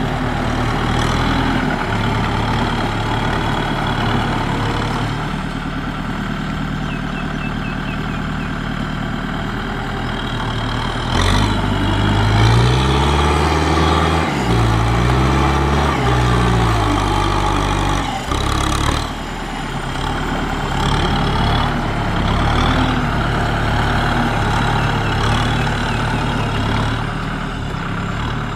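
Kubota M6040SU tractor's four-cylinder diesel engine working under load as it pushes mud with its front blade. About eleven seconds in it gets louder, and the engine speed rises and falls twice, with a couple of brief knocks.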